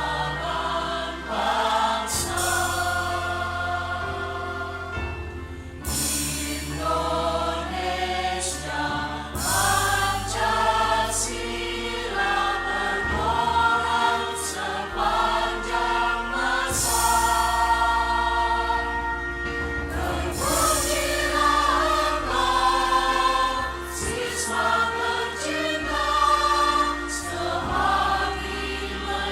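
Adult choir of teachers singing a school march, many voices together on held, changing chords over sustained low instrumental accompaniment.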